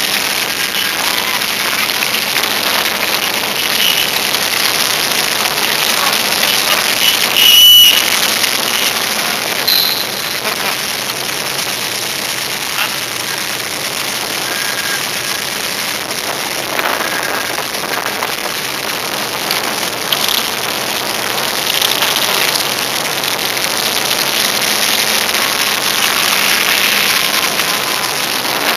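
Police touring motorcycles rolling past at walking pace, engines running over a steady hiss. One short, loud, high-pitched blip comes about eight seconds in.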